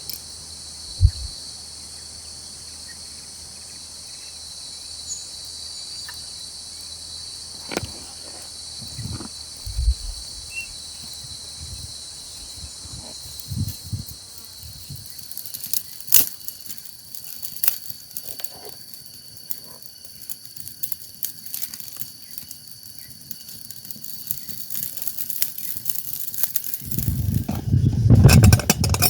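Steady high-pitched chirring of an insect chorus, with scattered knocks and clicks. A loud low rumbling noise swells near the end.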